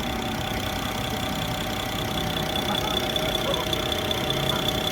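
BMW N54 twin-turbo straight-six idling, with a steady high-pitched whine over the engine's running: the weird noise the owner traced to the right side of the engine bay at idle.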